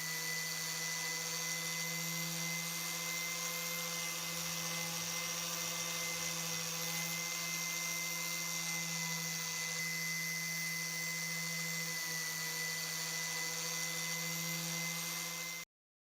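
Electric power tool motor running at a steady, constant speed, a hum with a high whine above it. It cuts off abruptly near the end.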